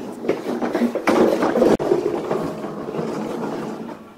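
Large plastic toy trucks rattling and clattering as they are rolled and handled on a wooden floor, with many quick clicks and knocks of plastic.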